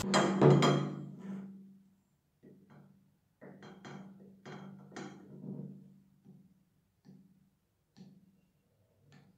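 Background music: a loud drum hit at the start that fades away, then softer drum hits in a loose beat, several about half a second apart, over a low held note.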